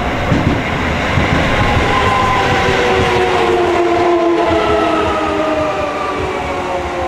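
Shin-Keisei 8800 series electric train running, a steady rumble with a whine of several tones that slowly falls in pitch.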